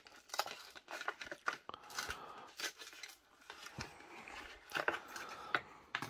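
Clear plastic blister pack being handled, crinkling and crackling in a scatter of light clicks and rustles.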